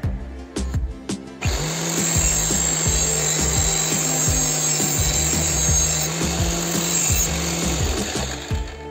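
Bench-clamped angle grinder running with an abrasive disc, grinding the edge of a steel knife blade, starting about a second and a half in and stopping near the end. Background music with a steady beat plays throughout.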